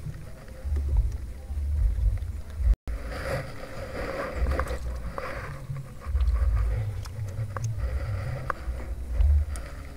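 Wind buffeting the microphone in uneven low gusts, with rustling and light clicks of hands handling fishing line and a keep net in the middle. The sound cuts out for an instant just before three seconds in.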